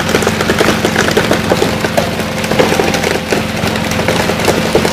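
Fast, uneven clattering of many knocks on a wooden deck over the steady hum of the boat's engine: freshly caught tuna thrashing on the dhoani's deck during pole-and-line fishing.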